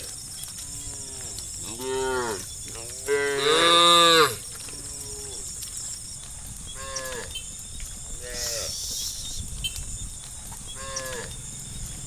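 Cattle mooing: a string of separate moos, the loudest and longest about three seconds in, the others shorter and fainter.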